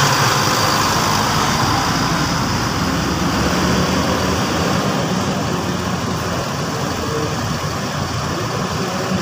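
Coach bus engine running as the bus pulls away and drives off, its sound slowly fading.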